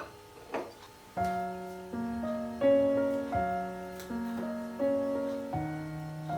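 Gentle background piano music: single notes and chords struck about every three quarters of a second, starting just after a second in. A small click is heard about half a second in.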